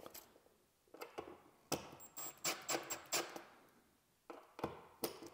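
A scatter of light clicks, taps and scrapes from handling tools and a small level against a wall receptacle, with a few faint high squeaks about two seconds in.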